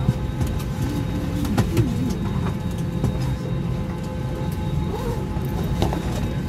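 Steady cabin hum inside an Airbus A319 airliner: an even low rumble carrying faint steady tones, with faint wavering voices or music in the background and a few light clicks.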